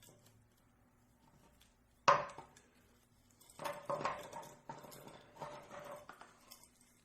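Small parts of a motorcycle turn signal mount being handled and fitted by hand: one sharp click about two seconds in, then a run of light knocks and rattles as the toothed piece is set in place.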